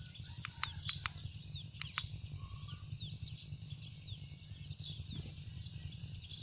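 Dense sparrow chirping: many short, falling chirps overlapping one another, over a steady high whine and a low rumble, with a few sharp clicks in the first two seconds.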